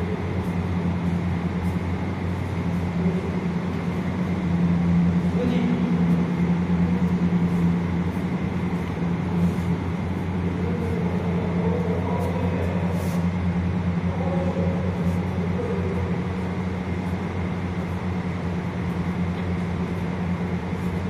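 Steady low hum filling the space, with faint voices of people talking in the background around the middle.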